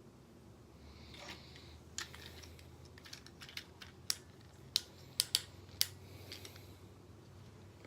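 Hard plastic clicks and taps of Transformers Combiner Wars toy parts being handled and fitted together: a scatter of sharp clicks, several in quick succession between about four and six seconds in.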